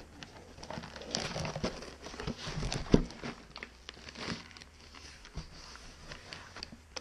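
A cardboard box being handled and tipped, with its plastic packing around glass bottles crinkling and rustling. There is a single thump about three seconds in.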